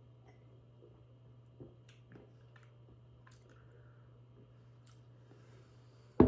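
Faint wet mouth sounds of a man sipping and tasting beer: scattered lip smacks, tongue clicks and swallows over a low steady hum. A sudden loud sound breaks in at the very end.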